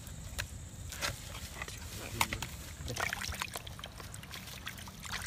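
Skinned trigger fish being rubbed and turned by hand in a plastic basin of water: sloshing and splashing, with scattered small clicks and taps.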